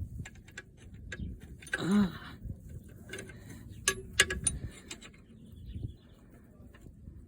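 Irregular metallic clicks and clinks of a wrench working the oil drain plug loose on a Club Car DS golf cart engine. A short pitched sound rises and falls about two seconds in, and a cluster of sharper clicks comes about four seconds in.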